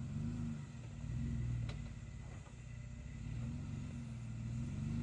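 Jeep Wrangler Rubicon's 3.6-litre V6 engine running at low revs under load as it crawls up a rock obstacle, swelling and easing with the throttle. A single short click a little under two seconds in.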